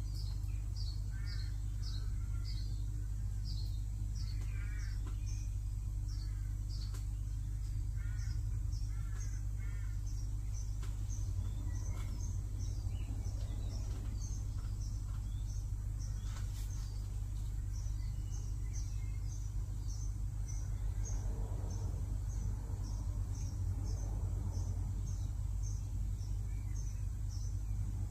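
Birds calling outdoors: a run of short high chirps repeats throughout, and a lower repeated call comes in over the first ten seconds or so. Under them runs a steady low rumble.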